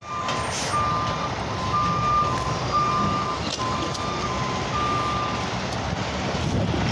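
Garbage truck's warning alarm alternating between a higher and a lower beep about twice a second, stopping about five and a half seconds in, over the steady rumble of the truck's engine.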